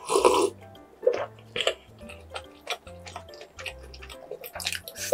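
Close-miked drinking and eating sounds: a loud swallow of milk right at the start, then scattered sharp clicks and crackles as crusty bread is picked apart. Background music with a low repeating bass line plays throughout.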